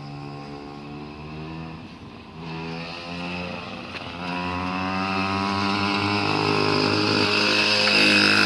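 Mini motorcycle engine being ridden, its pitch climbing and falling back several times as the throttle is worked, and growing steadily louder.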